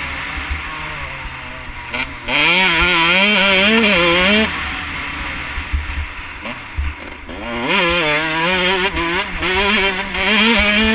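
Husqvarna CR125/144 two-stroke motocross bike under hard throttle on a dirt track: the engine jumps to a loud, wavering high rev about two seconds in, eases off for a few seconds, then climbs again near the end.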